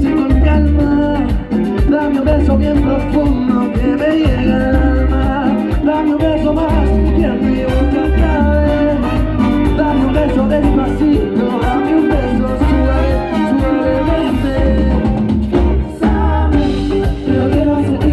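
Live band playing up-tempo Latin dance music with singing and a steady, driving drum beat.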